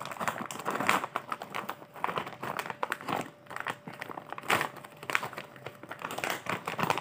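Clear plastic snack bag crinkling and crackling irregularly as it is squeezed and handled.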